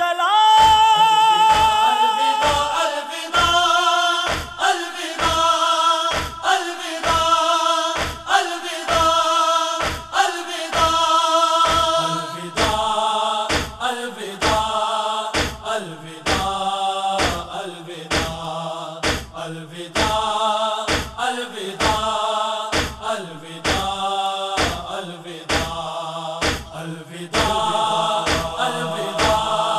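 Urdu noha, a Shia lament for Karbala, sung by male voices in a chant-like style over a steady beat of chest-beating (matam), roughly one thump a second. About twelve seconds in, the singing becomes a fuller group chant.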